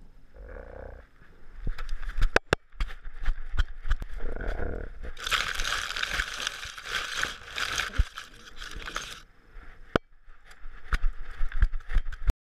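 Handling noise from a GoPro worn on a dog's collar: irregular sharp clicks and knocks as the housing jostles, with a dense rustle from about five to nine seconds in as the camera brushes through grass. The sound cuts off abruptly near the end.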